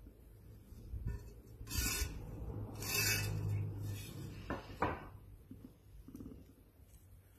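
Three short, rasping scrapes of a paintbrush and ceramic ware being handled on a wooden table, then a single sharper knock about five seconds in.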